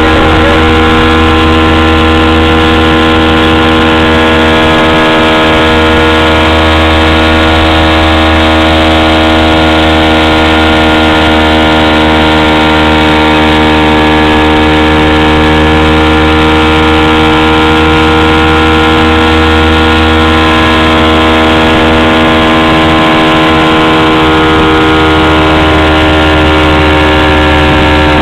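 Motorboat's outboard motor running steadily at speed under load towing a tube, a loud even drone whose pitch shifts slightly near the end.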